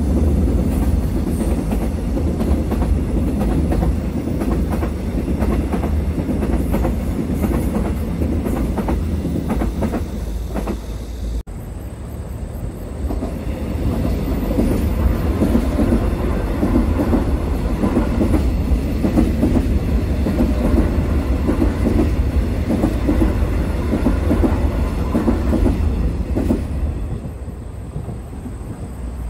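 Seoul metropolitan subway Line 4 / Suin-Bundang Line electric commuter trains passing on an elevated track: a steady rumble of steel wheels with rail clatter. The sound breaks off about eleven seconds in, then another train passes and fades near the end.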